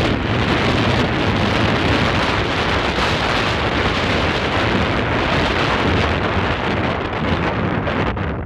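Wind buffeting the microphone: a loud, steady rush of noise with a heavy low rumble.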